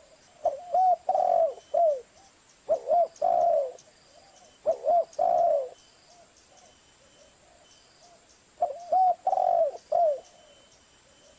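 Spotted dove (tekukur) cooing: four repeated phrases, each a couple of short coos, a longer drawn-out coo and a falling final note, with a longer pause before the last phrase.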